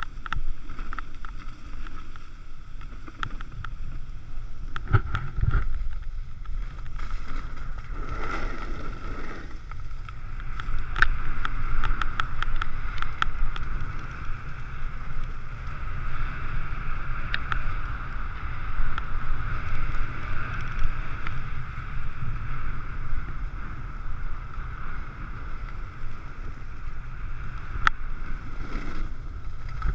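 Wind rushing over the microphone of a skier's body-worn camera at speed, with the hiss and scrape of skis carving over packed snow, louder in the middle of the run, and scattered small clicks.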